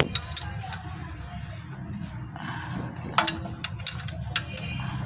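Sharp metallic clicks and clinks of a hand wrench working the oil-strainer bolts under the engine: a few near the start and a scattered run of them about three seconds in, over a steady low hum.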